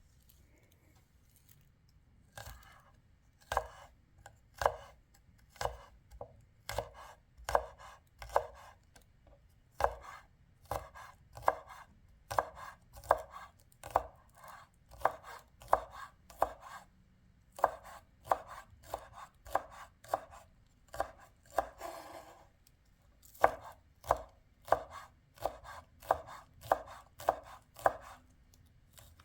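Knife chopping food on a cutting board in steady, separate strokes, starting about two seconds in, at roughly one to one and a half strokes a second.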